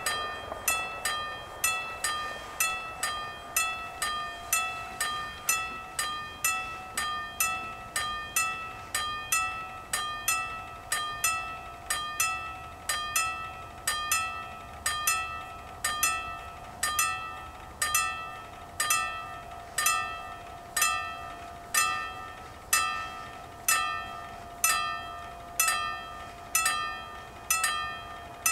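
Level-crossing warning bells ringing in a steady, unbroken run of rapid metallic strikes, each one ringing on briefly. They signal that the crossing is closed for an approaching train.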